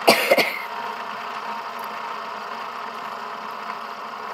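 Metal fidget spinner whirring steadily as it spins flat on a tabletop, a sound called pretty loud. Near the start a person coughs, the loudest sound, in two quick peaks.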